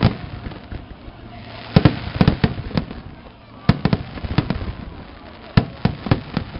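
Aerial fireworks shells bursting overhead: sharp bangs come in quick clusters of several, about every two seconds.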